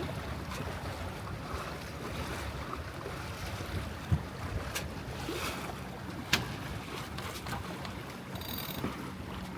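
Wind buffeting the microphone and water washing along the hull of a Catalina 22 sailboat under sail. Two sharp knocks stand out, about four seconds in and again about six seconds in.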